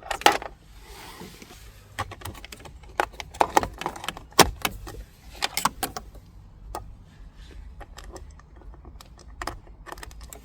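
Irregular clicks and light rattles of a dashcam's USB power cable and plug being handled and fitted against the car's plastic interior trim, busiest in the middle of the stretch.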